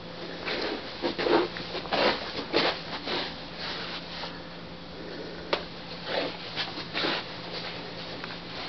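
Handling noise from a handheld compact digital camera being moved about: uneven rustling and scuffing, with one sharp click about five and a half seconds in. A faint steady low hum runs beneath.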